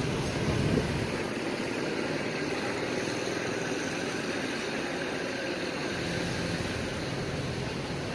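Steady hum of vehicle engines and traffic at a bus terminal, with no single sound standing out.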